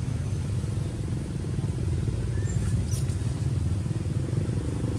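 A steady low engine rumble with a fast, even pulse, with a faint click about three seconds in.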